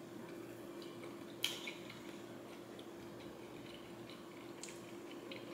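Faint chewing and wet mouth sounds as a pan-seared chicken dumpling is eaten, with one small click about a second and a half in, over a steady low hum.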